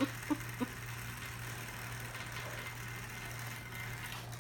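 Small electric motor of a toy that whirls a butterfly for cats, running with a steady low hum. A few short blips come in the first half second.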